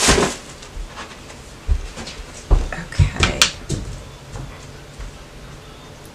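A box set down with a thud, then several short knocks and bumps of things being handled.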